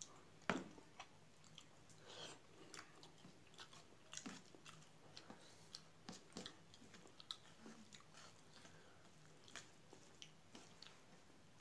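Faint, irregular chewing and wet mouth clicks of someone eating rice and curry, mixed with fingers squishing rice against a steel plate. One sharper knock about half a second in.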